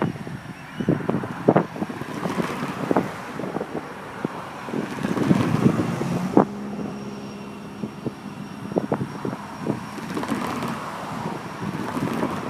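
Wind buffeting the microphone in gusts, over the low, distant rumble of a diesel freight train slowing to a stop.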